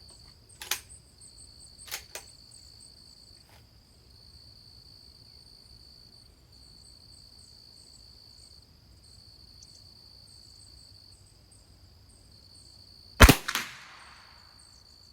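.22 LR rimfire rifle firing a single shot about 13 seconds in: a sharp crack with a short ringing tail. Two lighter sharp clicks come in the first two seconds, over a steady high-pitched trill of insects.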